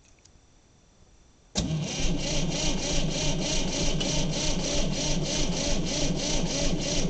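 Cold diesel engine of a 1960 Massey Ferguson 200 tractor, its glow plugs heated, being cranked over by the starter. The cranking starts suddenly about a second and a half in and goes on with an even chug of about four compression strokes a second, without the engine catching.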